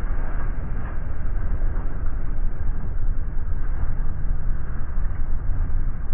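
Game-fishing boat's engines running under way with churning wake water rushing past the stern: a steady, loud low rumble.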